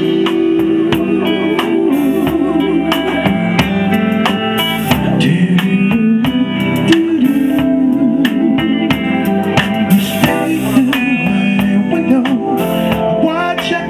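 Live soul band playing an instrumental passage, with drum kit hits over sustained instrumental chords.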